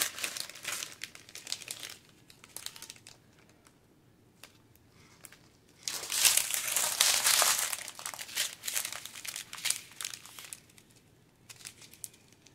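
Plastic crinkling as a strip of small zip bags of diamond-painting drills is handled and laid down. The crinkling comes in two spells, the first for about two seconds and a louder one from about six to eight and a half seconds in, with a few soft clicks between and after.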